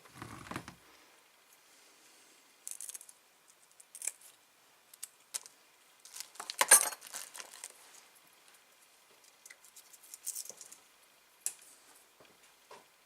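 Handling noises as hands work a microphone wire behind a helmet's foam lining: scattered rustles, scrapes and small clicks, with the loudest burst of rubbing about seven seconds in.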